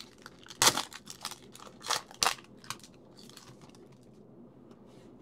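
Foil trading-card pack wrapper crinkling as it is pulled open and the cards slid out, with a few sharp crackles in the first three seconds.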